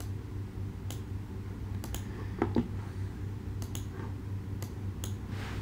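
Scattered, irregular clicks of a computer mouse and keyboard as the cover design is edited in Adobe Illustrator, over a low steady hum.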